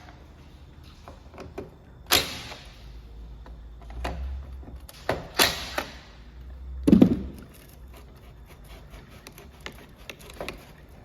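A few sharp knocks and clatters of hard tools and parts being handled and set down during work on a string trimmer's clutch, the loudest about seven seconds in.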